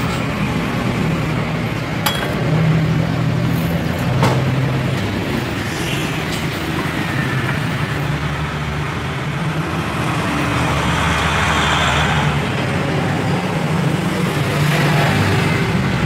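Steady engine noise with a low hum that shifts in pitch now and then, and a few faint clicks.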